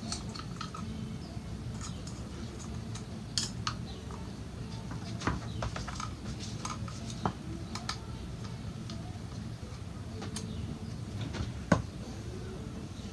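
Scattered light clicks and knocks of an oil filter housing cap and a small metal pick being handled over a drain bucket while new O-rings are greased and fitted, with one sharper click near the end. A steady low hum runs underneath.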